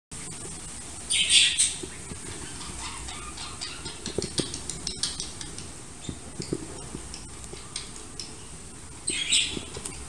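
Baby budgerigars calling: two loud, raspy chirping bursts, one about a second in and one near the end, with light clicks and taps between.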